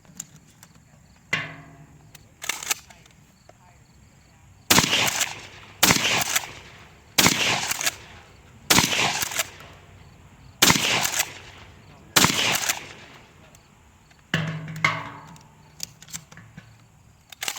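Shotgun fired six times in quick succession, about one shot every second and a half, each report ringing out briefly. Fainter sharp reports come before and after the string.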